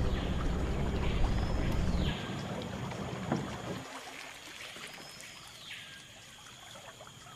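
Low rumble of a boat motor on a small river, dropping away about two seconds in and again near four seconds. Behind it is quieter rainforest ambience with an animal call that rises and falls in pitch, repeated about every three and a half seconds.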